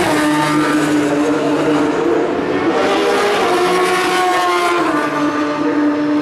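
Racing motorcycle engines running at high revs as the bikes pass at speed on a straight, loud and continuous. Several engine notes overlap, their pitches rising and falling slowly as the bikes go by.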